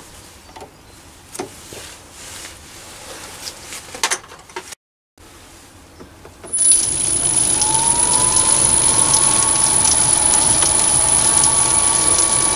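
A few light metal clicks and knocks at first. About six and a half seconds in, the Chinese mini lathe's motor starts: a whine rises in pitch and settles, then the lathe runs steadily with a high whine as the chuck spins the brass fire-piston tube against a live centre.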